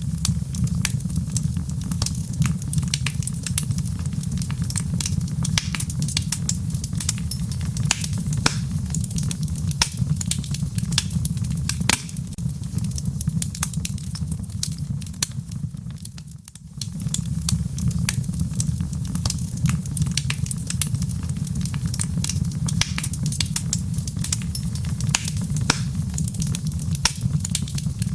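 Wood fire in a fireplace crackling steadily, with dense sharp pops and snaps over a low rumble of the flames. The sound dips briefly a little past halfway through, then carries on.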